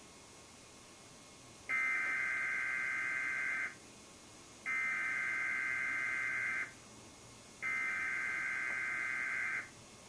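Emergency Alert System SAME header: three bursts of buzzing digital data tones, each about two seconds long and about a second apart, opening a Required Weekly Test and heard through a television's speaker.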